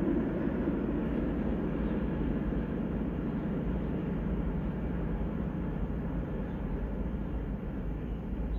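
Distant freight train, a diesel locomotive hauling a line of container flat wagons, rumbling steadily and slowly fading.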